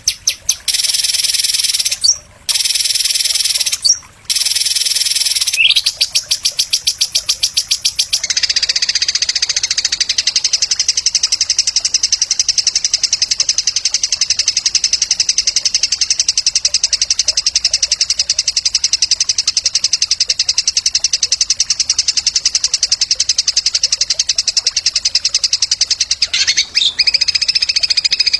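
A songbird's rapid, buzzy trill of very fast repeated high notes. It breaks off twice briefly in the first few seconds, then runs as one long unbroken trill for about eighteen seconds before the pitch shifts near the end. This is a masteran tutor song, played to train competition songbirds.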